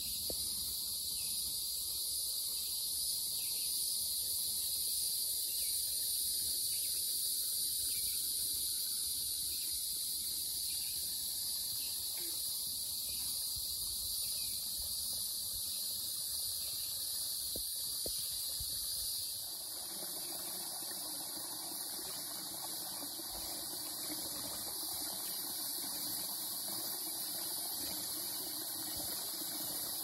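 Steady, high-pitched chorus of insects in summer woodland. About two-thirds of the way in, the low rush of a small stream's flowing water joins it.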